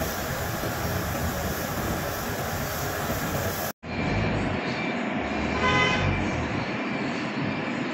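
Compressed-air spray gun hissing as it sprays paint, over the steady rush of a paint booth's air flow. The sound drops out for an instant about four seconds in, then the steady air rush resumes, with a short pitched tone about two seconds later.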